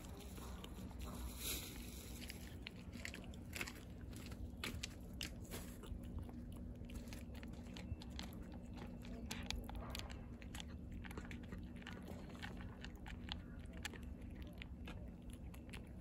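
A cat eating dry kibble mixed with wet food: a quick, irregular run of crisp crunches as it chews, over a faint low steady hum.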